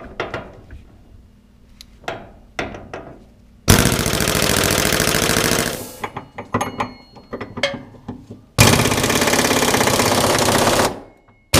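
Pneumatic impact wrench hammering in two bursts of about two seconds each, breaking loose a 24 mm cradle bushing bolt through a swivel socket on an extension. A few light metal clicks come between the bursts.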